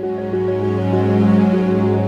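Background music: a gentle, sustained new-age style track with a held low tone under a slow melody of changing notes.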